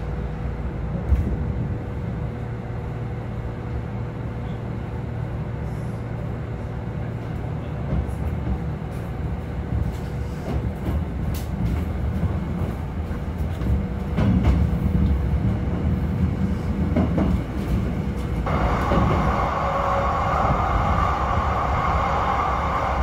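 Running noise inside a Kintetsu 6400-series electric train: a steady low rumble of wheels on rail with a faint steady whine and occasional light clicks. About three-quarters of the way through, the noise grows louder and brighter.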